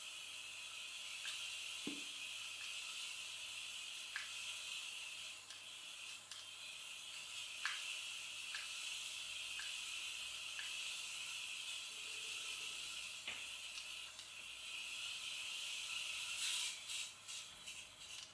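Atomix micro RC toy car's tiny electric drive motor and gears running with a steady high-pitched whirring hiss as it drives around. Light scattered clicks are heard, with a quick cluster of ticks near the end.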